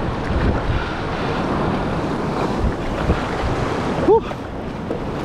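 Breaking surf and whitewash with wind buffeting the action-camera microphone. About four seconds in comes a brief pitched cry that rises and falls.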